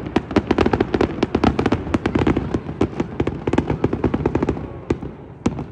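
Fireworks going off in a rapid, crackling barrage of many sharp bangs, thinning out to a few single reports near the end.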